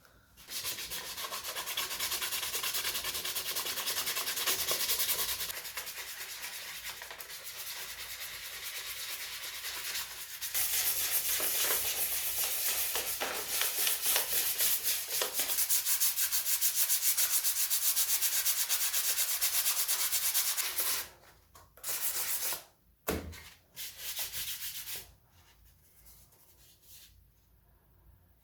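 Sandpaper rubbing over the primer on a 3D-printed PLA bust in long, continuous stretches, which stop about 21 seconds in. A few short strokes follow.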